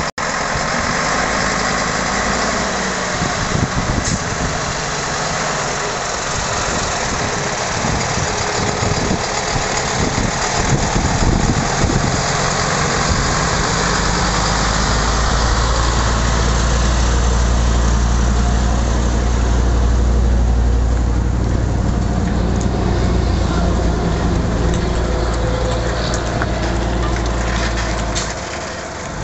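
Diesel engine of an old Mercedes-Benz cargo truck running at low speed as the truck creeps forward. From about halfway through, the truck is close and its low engine note becomes much stronger and steadier.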